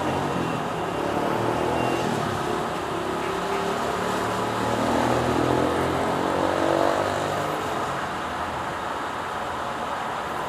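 Motor vehicle engine running steadily, with an engine tone rising around the middle as a vehicle accelerates.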